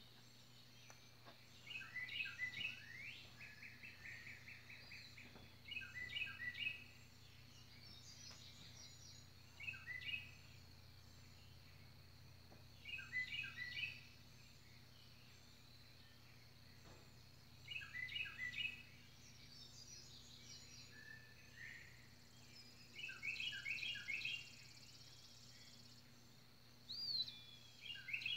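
A songbird singing the same short phrase over and over, about every four seconds, with fainter chirps from other birds in between.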